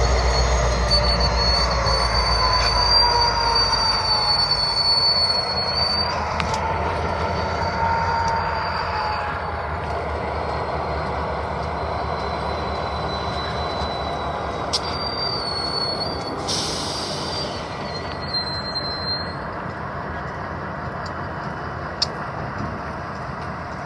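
Union Pacific locomotive moving slowly through a yard, its steel wheels squealing against the rails in high, wavering tones over a low rumble that fades over the first several seconds.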